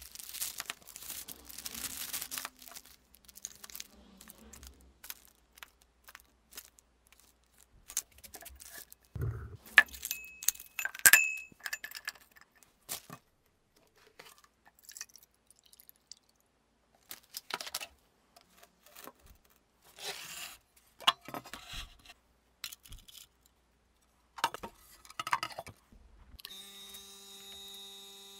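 Workshop handling sounds while stabilizing wood: a plastic zip-lock bag crinkling, then a string of clicks, knocks and rustles as a glass beaker and a plastic jug of stabilizing resin are handled. About three quarters of the way through the sound stops being separate knocks: a vacuum pump starts a steady hum, drawing vacuum on the resin-soaked wood in its chamber.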